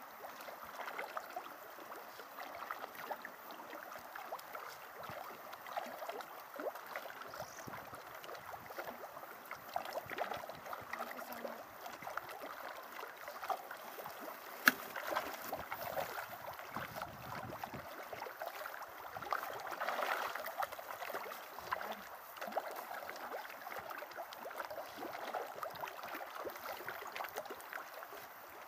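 Steady crackle of small splashes and lapping water on the pond surface, with a single sharp click about halfway through.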